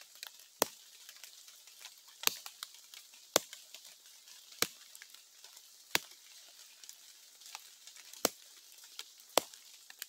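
A thin stick knocked in a slow series of sharp, single knocks, about seven of them one to two seconds apart and uneven in strength: a 'batuque', imitating the foot-stamping an agouti uses to call another agouti.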